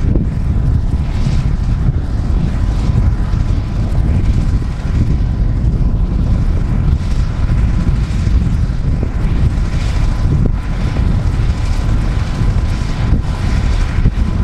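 Airbus H125 helicopter running on the ground with its rotors turning: a steady low rumble with a thin, steady turbine whine above it, heavily buffeted by wind on the microphone.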